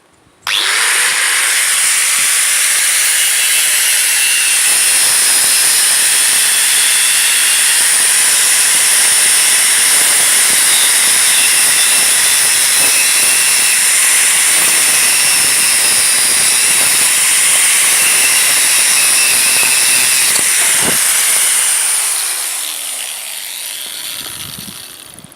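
Angle grinder working on steel: a loud, steady hissing rasp that starts suddenly, then fades over the last few seconds as the disc winds down with a falling tone.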